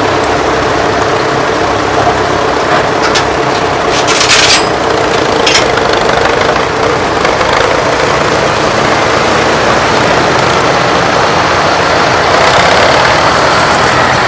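Tandem Fordson Super Major tractor's four-cylinder diesel engines running steadily under load as the rig pulls along a dirt track, with a few brief knocks about four and five and a half seconds in.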